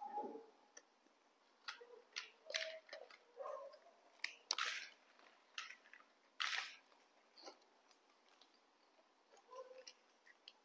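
Young macaques chewing crunchy snack sticks: a quiet string of short, irregular crisp crunches and crackles.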